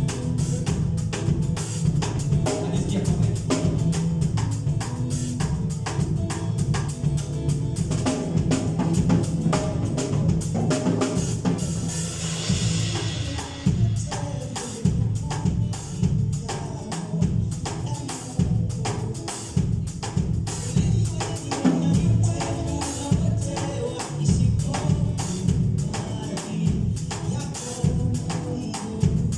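Live church worship music: a drum kit and bass keep a fast, steady beat, with tambourine over it.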